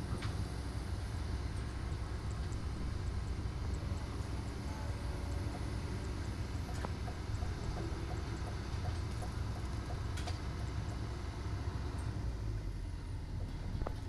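Hydraulic excavator's diesel engine running steadily, with a few sharp knocks of steel being handled.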